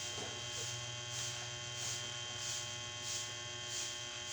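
A steady electrical hum with several pitched lines, with a soft hiss swelling and fading about every two-thirds of a second.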